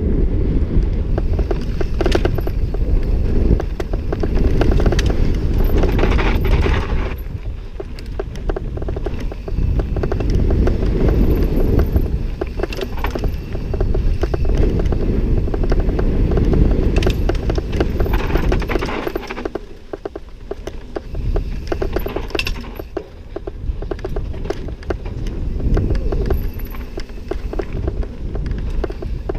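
Mountain bike riding fast down a dirt trail, heard from a helmet camera: wind buffeting the microphone, tyres rolling over dirt and loose stones, and the chain and bike parts rattling over bumps. It eases for a few seconds past the middle.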